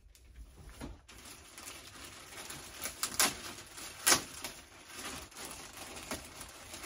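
Clear plastic packaging crinkling and rustling as it is handled and pulled open, with sharper crackles about three and four seconds in.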